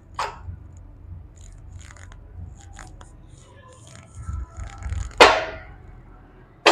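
Light metal clicks and taps of a Hero Splendor crankshaft assembly and engine parts being handled at the crankcase, with one louder scrape about five seconds in.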